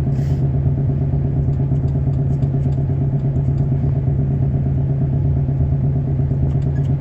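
An engine running steadily at an even speed, with a brief burst of noise just after the start.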